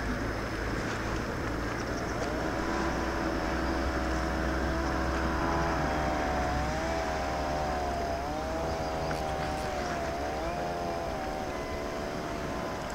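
A boat engine running steadily with a low rumble, its pitch wavering slightly now and then.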